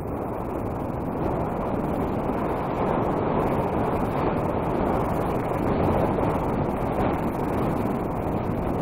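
Wind buffeting the microphone of a skier's point-of-view camera during a downhill run: a steady, rushing roar with no clear rhythm.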